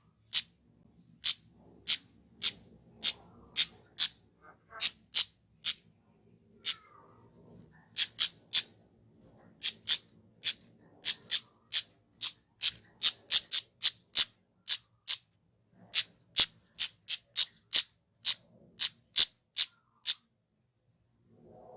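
Flowerpecker (kemade) calling: a long series of short, sharp, very high 'tsit' chips, given singly and in quick twos and threes, stopping shortly before the end.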